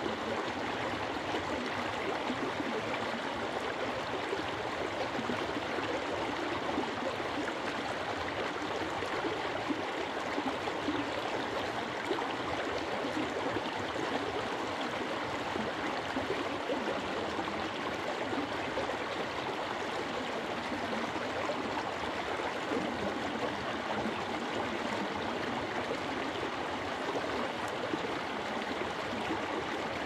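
Shallow mountain stream running over rocks, a steady rushing and gurgling of water.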